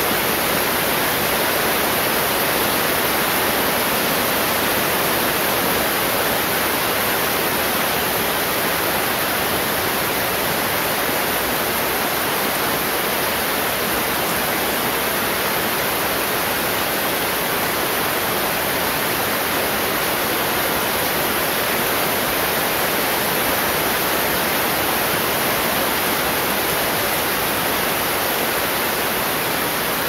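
Heavy rain falling steadily on garden trees and plants: a dense, even hiss with no thunder claps.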